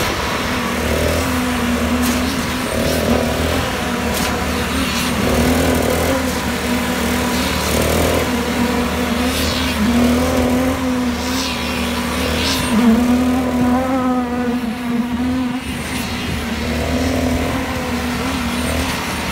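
Concrete boom pump and poker vibrator running during a slab pour: a steady machine hum with a rhythmic surge about every two and a half seconds, in time with the pump's strokes.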